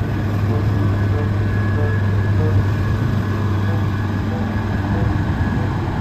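The diesel engine of a Caterpillar M320 wheeled excavator, running steadily as the machine drives and turns, with a constant low hum.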